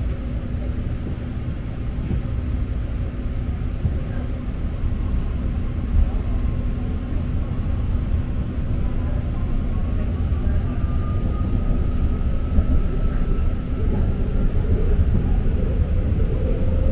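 Inside a moving BART train car: the steady low rumble of the train running on its rails, with a faint whine from the propulsion motors rising in pitch as it gathers speed.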